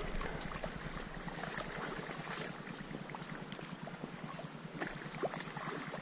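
Water sloshing and dead cattail stalks brushing and rustling as someone moves through a flooded marsh, with a scatter of small splashes and light wind on the microphone.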